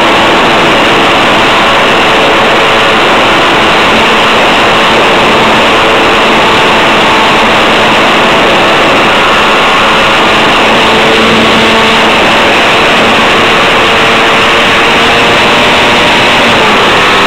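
Model airplane's motor and propeller running at high power, picked up very close by a camera mounted on the plane. It is a loud, steady buzz mixed with rushing air and holds unbroken throughout.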